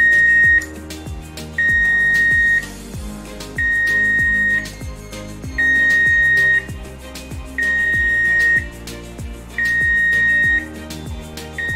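Alarm tone from a ceiling loudspeaker driven by a Bosch Plena voice alarm controller in emergency mode: a steady high beep about a second long, repeating every two seconds, six times. Background music with a steady beat runs underneath.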